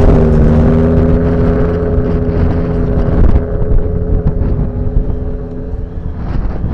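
A vehicle engine pulling steadily while driving over sand, with wind and tyre noise. The engine note drops away about three seconds in.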